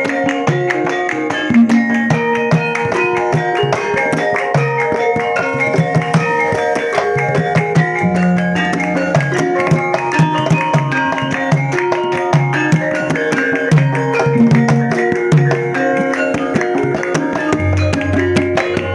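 A campursari band playing: kendang hand drums beat a steady rhythm under plucked strings and held melodic notes, with a moving bass line.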